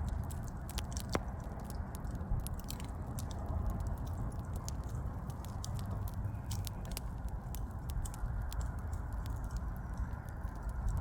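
Wood fire crackling: many irregular sharp pops and snaps over a steady low rumble of the flames.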